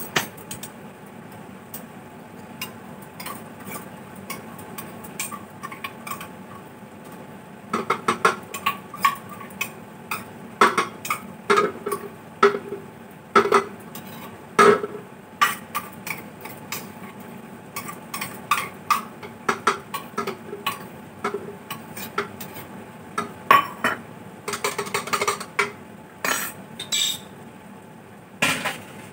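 Metal spoon clinking and scraping against steel kitchen utensils: a long run of irregular clinks, some with a brief ring, over a steady low background hum. The clinks are sparse at first and come thick and fast from about a quarter of the way in.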